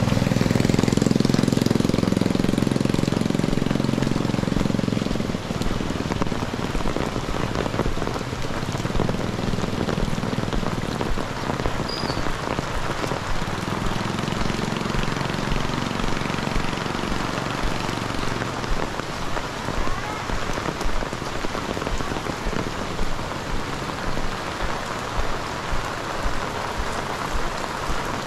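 Heavy rain falling steadily, a dense patter of raindrops on surfaces. A low rumble is loudest for the first five seconds, then fades, returning faintly a couple of times.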